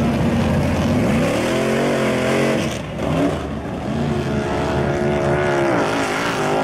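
Lifted mud-bog truck engines revving hard as the trucks power through water and mud: the pitch climbs from about a second in, breaks off near three seconds, then climbs again and drops away near the end.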